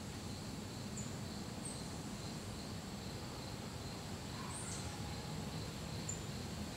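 Steady outdoor insect chorus: a continuous high-pitched trill with a second, lower pulsing trill under it, a few short high chirps here and there, over a low background rumble.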